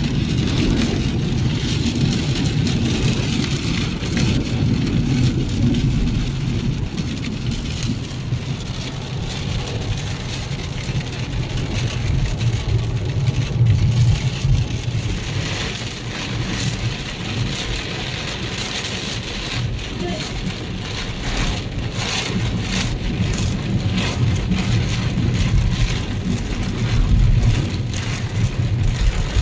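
Heavy rain pelting a car as it drives, with many sharp drop hits over the steady low rumble of the engine and tyres on the wet road.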